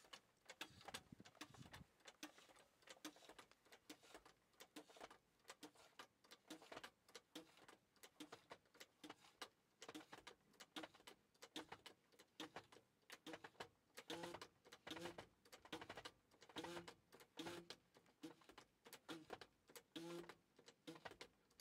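Faint, rhythmic clicking of the hydraulic hand pump on an aircraft flat-tire dolly being worked with its lever, about one stroke a second, as the dolly lifts the wheel. About two-thirds of the way in, each stroke also gives a short squeak.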